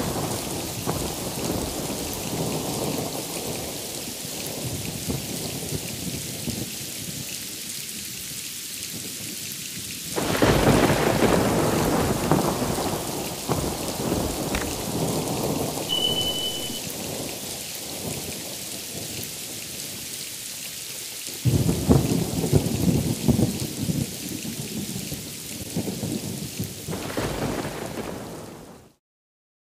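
Thunderstorm: steady heavy rain with distant thunder rumbling underneath. Two loud thunderclaps break suddenly, about ten and about twenty-one seconds in, each rolling on for several seconds before fading back into the rain. The sound cuts off suddenly near the end.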